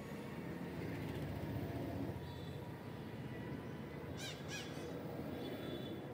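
Steady street traffic noise, with a crow cawing twice in quick succession about four seconds in.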